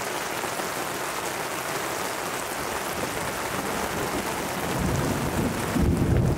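Heavy rain falling steadily in a thunderstorm, with a low rumble of thunder building about five seconds in and growing louder near the end.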